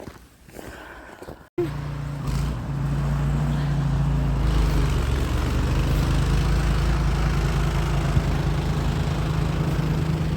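An engine running steadily, with a low hum and a dense rushing noise over it, starting abruptly about a second and a half in.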